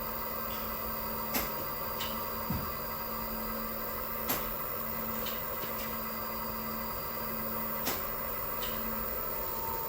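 Yaskawa A1000 inverter running on a post-repair test: a steady electrical hum with a few fixed tones, broken by three sharp clicks and some fainter ticks.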